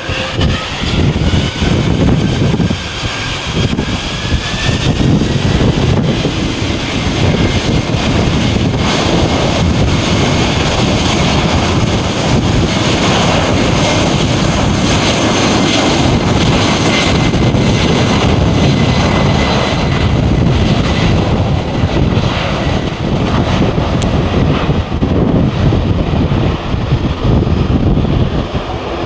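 Jet airliner engines running loud: a heavy rumble with a whine that rises in pitch over the first few seconds, then holds steady.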